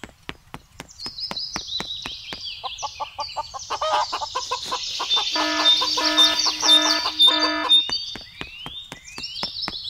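Chickens clucking, with chicks peeping. Quick short clucks run throughout, over high falling peeps, and a run of four louder clucking calls comes in the middle.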